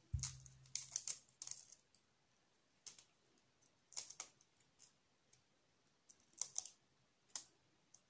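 Fingernails picking and chipping at the shell of a raw hen's egg to open it: scattered small clicks and taps, singly or a few together, with quiet gaps between.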